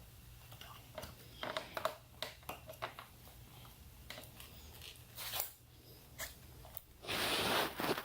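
Scattered light clicks and rustles of hands handling motorcycle wiring, connectors and plastic. A louder, longer rustling scrape starts about seven seconds in.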